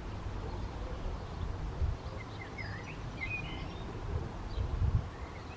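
Outdoor background noise: a steady low rumble with a couple of dull bumps, and a few short bird chirps about halfway through.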